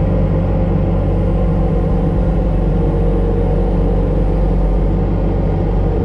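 Skid steer loader's engine running steadily and loudly, heard from inside the cab, as the loader works its pallet forks.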